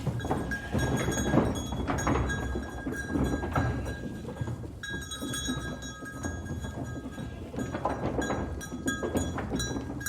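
A herd of goats moving off, their neck bells ringing and clanking irregularly over a clatter of hooves and shuffling.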